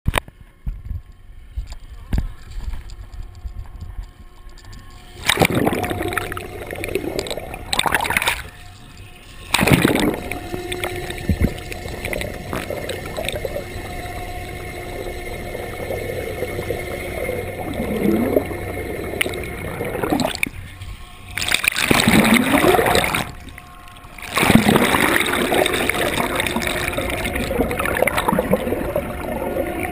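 Sea water splashing, sloshing and gurgling around an action camera dipped below the surface, heard as loud muffled rushes that start about five seconds in and break off briefly a few times. A faint steady hum runs underneath.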